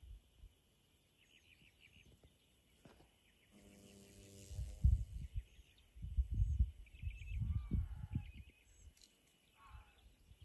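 Small birds chirping in short, quick trills several times, under low thumps and rumbles on the microphone, loudest from about five to eight seconds in.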